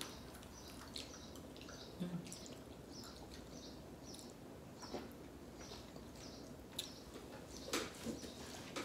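Faint wet mouth sounds of eating ripe mango: scattered soft smacks and slurps as the fruit is bitten and chewed. A faint high chirping repeats in the background about twice a second.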